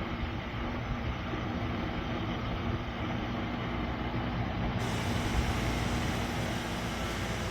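SereneLife 10,000 BTU portable air conditioner running: a steady rush of blown air over a low, even hum.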